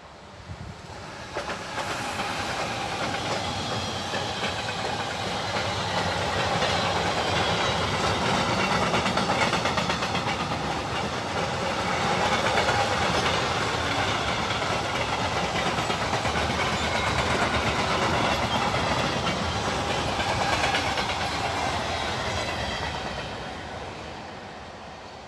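A freight train passing close by: wheels rolling and clattering over the rail joints as the wagons go past, building up about a second in, holding steady for around twenty seconds and fading away near the end.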